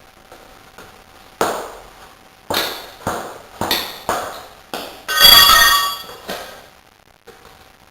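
Metal tools knocking during a rear tyre change: about six sharp strikes, each with a short metallic ring, then a louder clang about five seconds in that rings for about a second.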